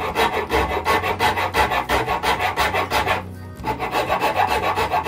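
A small hand rasp rasping the edge of a wooden strip in quick, short, rhythmic strokes, several a second, with a brief pause just after three seconds in.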